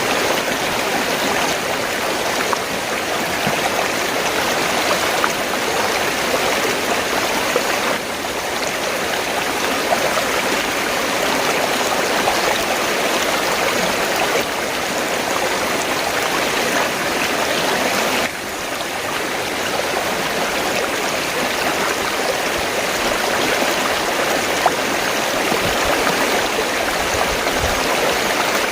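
River water flowing steadily, a dense rushing and splashing noise with a couple of small shifts in level.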